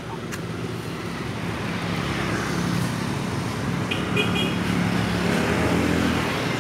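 Traffic noise from a road vehicle driving past, its engine hum and tyre noise growing louder over the last few seconds.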